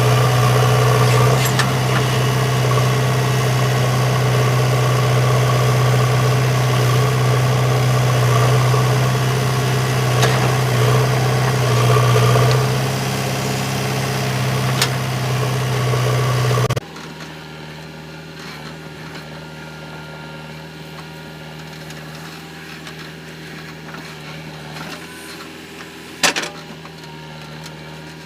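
Heavy diesel engine running steadily. About two-thirds of the way through, the sound drops off abruptly to a much quieter low hum, and a single sharp knock comes near the end.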